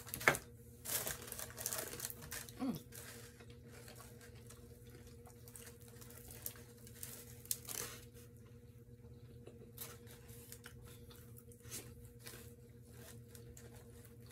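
Fried chicken wings being pulled apart by hand, soft tearing of the meat with crinkling of the paper liner and scattered small clicks and ticks. A sharp click about a third of a second in is the loudest sound; the rustling is busiest in the first three seconds and sparse after that, over a steady low hum.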